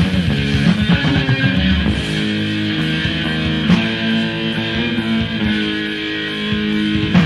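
Death metal/grindcore song from a 1994 demo tape: electric guitar riffing with bass guitar, loud and dense.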